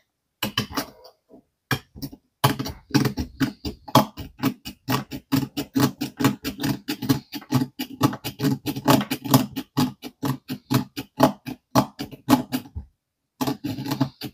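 Small hand file rasping back and forth over the flared end of a metal rivet on a die-cast toy truck, filing the flare off so the rivet can be pushed out. A few scattered strokes, then a steady run of quick strokes, about four or five a second, that breaks off briefly near the end.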